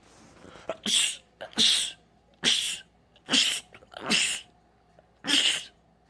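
A man sneezing six times in quick succession, a sharp burst about every second, after a short in-breath that grows louder before the first.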